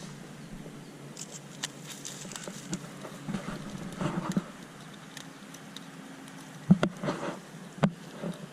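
Scattered taps, clicks and light rustling from handling a freshly caught trout and fishing gear, with a sharp knock about two-thirds of the way in.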